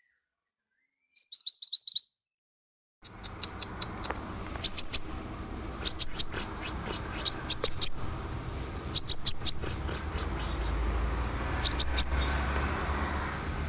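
Scarlet minivet calling in quick runs of short, high, sharp notes. A fast string of about seven notes comes a second in, then after a brief pause more clusters of two to five notes follow every second or so, over a steady low background rumble.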